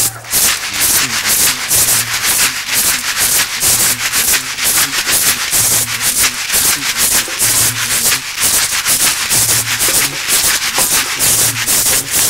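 Shekere (beaded gourd shakers) shaken in a quick, steady rhythm, the beads rattling against the gourds.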